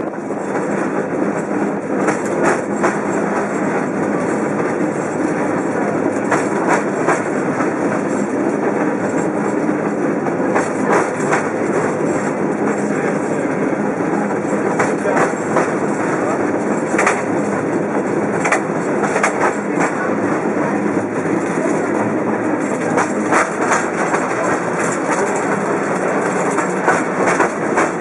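San Francisco cable car running along the street, heard from on board: a steady clattering rumble with frequent sharp knocks and clanks throughout.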